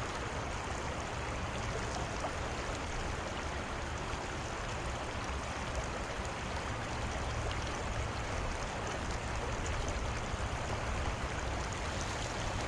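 Steady rush of flowing river water, an even noise that does not change.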